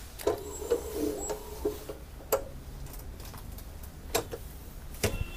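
A swing-away T-shirt heat press being swung over and clamped down: scattered clicks and knocks from the handle and frame, with a wavering low pitched sound during the first second and a half. A high electronic beep from the press's timer starts right at the end.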